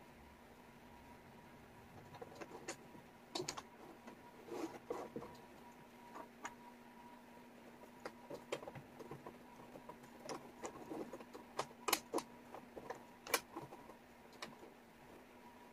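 Wooden jigsaw puzzle pieces clicking and tapping as hands pick them up, slide them across the tabletop and press them into place: irregular light clicks, with a few sharper ones in the second half. A faint steady hum runs underneath.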